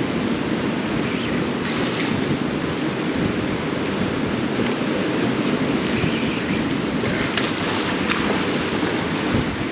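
Ocean surf washing and surging around barnacle-covered pier pilings, a steady rush of water with wind on the microphone. A few light clicks sound over it.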